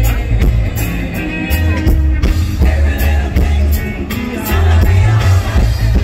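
Live reggae band playing loudly, with a deep bass line, drum kit hits and a man singing the lead vocal.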